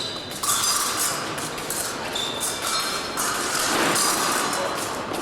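Épée blades clinking and tapping, with short metallic rings, amid clatter and voices in a large echoing sports hall.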